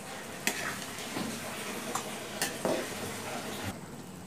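Flat metal spatula stirring amla in a pan of thick sugar syrup boiling hard on a gas stove: a steady bubbling sizzle with a few sharp clinks of the spatula against the metal pan. The syrup is nearly cooked down, the murabba almost done.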